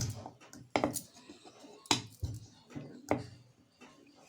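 Rolling pin knocking and rolling on a rolling board as a small ball of maida dough is rolled out flat into a momo wrapper: a few sharp, irregular knocks about a second apart.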